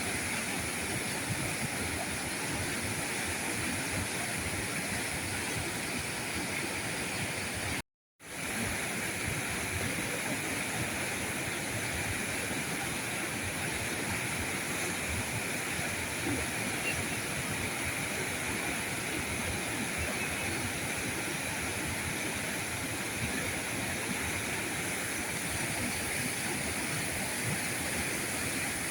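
River current rushing steadily over rocks, an even wash of flowing water. About eight seconds in the sound drops out completely for a moment, then comes straight back.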